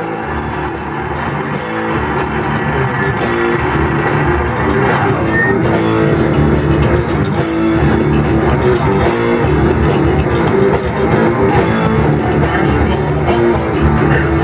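Heavy metal band playing: electric guitar, bass and a Pearl drum kit together. The level builds over the first couple of seconds, then holds steady and loud.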